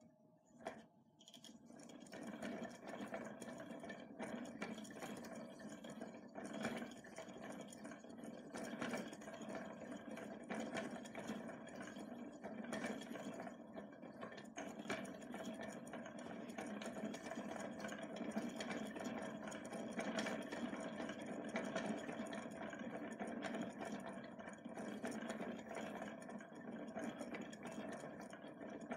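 Hand-cranked zaguri reeling frame turning: its metal gear wheel and spinning wooden reel run with a steady mechanical whir as thread winds onto the reel. It starts up about two seconds in and keeps an even pace.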